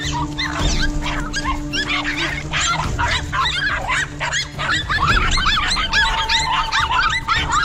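Several dogs barking and yelping rapidly over one another as they attack a monitor lizard.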